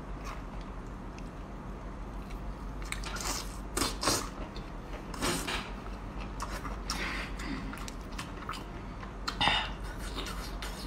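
Close-up mouth sounds of eating whole braised octopus: a scatter of short, wet chewing sounds, the loudest about nine and a half seconds in.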